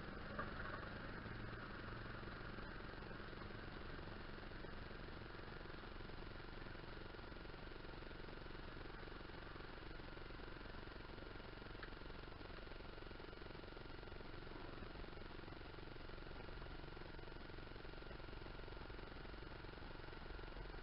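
Faint, steady mechanical hum like an idling engine, with a faint click or two.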